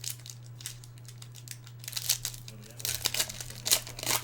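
Foil wrapper of a baseball card pack being torn open and crinkled: bursts of sharp crackling, the loudest near the end.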